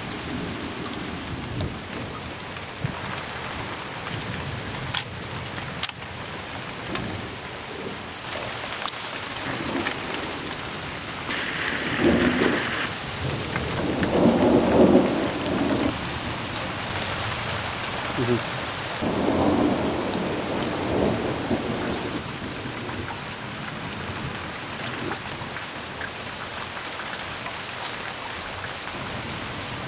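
Thunderstorm: steady rain with several rolls of thunder, the loudest swelling about twelve to sixteen seconds in and again around twenty seconds. A few sharp ticks stand out over the rain early on.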